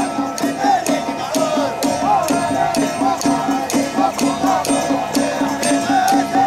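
Traditional Taiwanese temple-procession music: a wavering, gliding melody over a quick, steady beat of clacking percussion.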